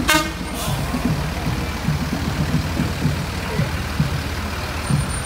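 Propane delivery truck's engine running as it rolls slowly past, a steady low rumble, with two short hisses right at the start.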